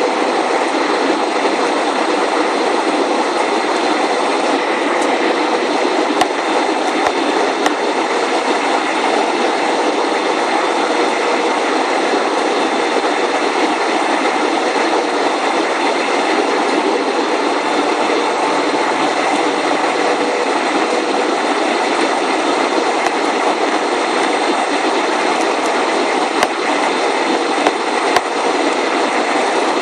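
Steady cabin noise of an airliner on its approach to land: the underwing turbofan engines running and air rushing past the fuselage, heard from inside the cabin. A few faint clicks stand out here and there.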